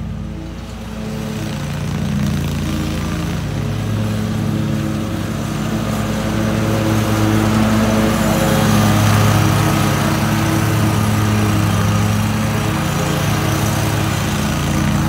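Zero-turn riding mower's engine running steadily while it pulls a drum spike aerator across the lawn. It grows louder as it comes close and stays loud from about eight seconds on.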